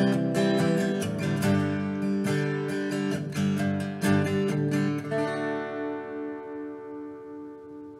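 Acoustic guitar strumming chords, ending about five seconds in on a final chord that rings on and fades away.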